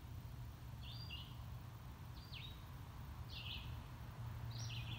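A small bird chirping outdoors: four short, high chirps about a second apart, over a low steady hum.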